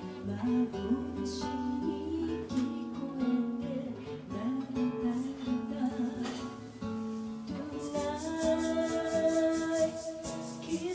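Live acoustic band music: a strummed acoustic guitar and other plucked strings with a singing voice, playing a slow summery pop song. From about eight seconds in, a rattling shaker keeps a steady beat of about four strokes a second.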